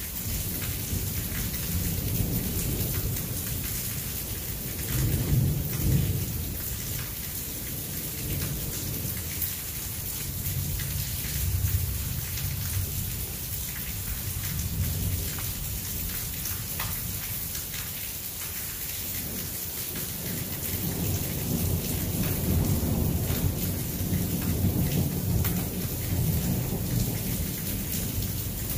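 Steady rain hissing on nearby surfaces, with low rumbles of distant thunder swelling and fading several times; the longest runs from about twenty seconds in almost to the end.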